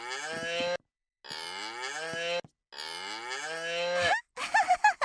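Toy animal-sound keyboard playing a cow's moo, three times in a row, each moo cut off abruptly as the next key is pressed. About four seconds in, it switches to a different, shorter, warbling animal call.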